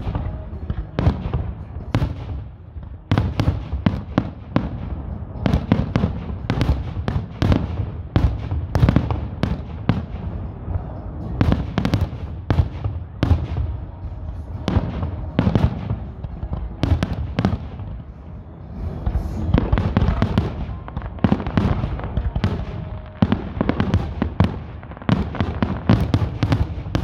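Aerial fireworks display: a rapid, continuous string of shell bursts and bangs with crackling over a low rumble, easing briefly about two-thirds of the way through before it picks up again.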